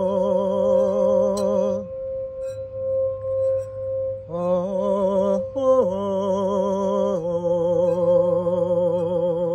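Crystal singing bowl tuned to 528 Hz, rubbed with a wand so that it holds one steady ringing tone, with a woman singing long wordless notes with vibrato over it. Her voice stops for about two seconds near the middle, leaving the bowl ringing alone, then comes back.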